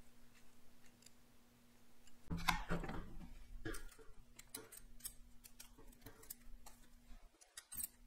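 Metal parts being handled and fitted together: a run of light clicks and knocks starting a little over two seconds in, as a steel shaft and machined aluminum collars are worked into pillow block bearings.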